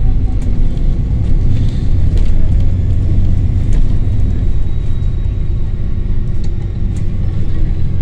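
London bus diesel engine running with a strong low rumble and a faint, steady high whine above it.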